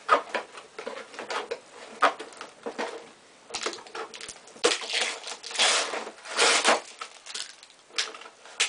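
Cardboard box being opened and unpacked by hand: scattered taps and knocks of the box flaps, then several longer crinkling, rustling bursts as paper and plastic packing is pulled out.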